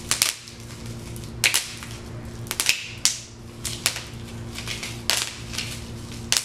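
Bubble wrap being handled and popped: a dozen or so sharp, irregular pops with some plastic crinkling between them.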